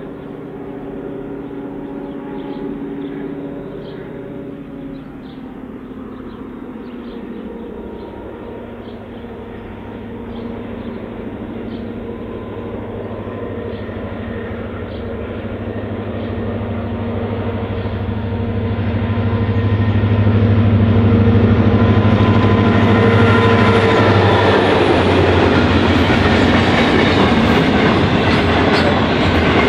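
EMD GT26C C class diesel-electric locomotive's two-stroke V16 engine approaching under power and growing steadily louder, after a multi-tone horn sounds in the distance in the first few seconds. The locomotive passes about twenty seconds in, and then a container freight train's wagons roll by, their wheels clicking rhythmically over the rails.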